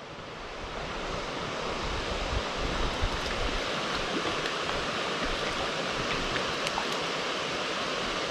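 Running water of a small forest stream: a steady rushing hiss, with a few faint clicks in it.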